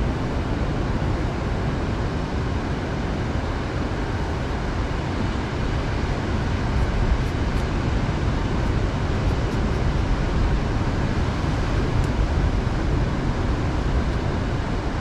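A steady, deep rush of wind and surf, with a few faint ticks about seven and twelve seconds in.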